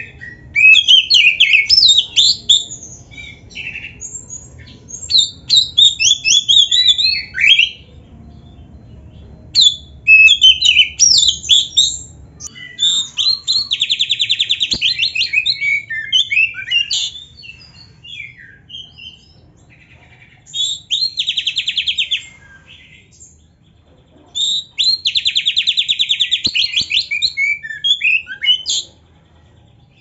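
Oriental magpie-robin singing: loud, varied phrases of whistles and chatter broken by short pauses, with several fast rattling trills, the longest near the end.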